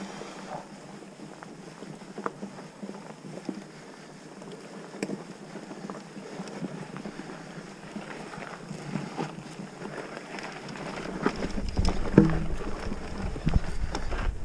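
Mountain bike rolling along a dirt trail: steady tyre noise with scattered clicks and rattles from the bike. From about eleven seconds in, wind buffeting the microphone adds a low rumble and the sound grows louder.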